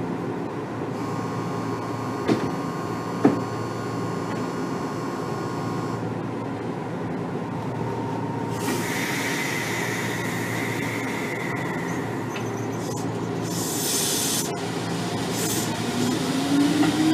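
Inside a Kotoden 1300-series electric car (ex-Keikyu 1000, resistance-controlled DC motors): a steady low hum with two sharp clicks in the first few seconds. A short burst of air hiss comes about two-thirds of the way through. Near the end a motor whine rises in pitch as the car begins to accelerate.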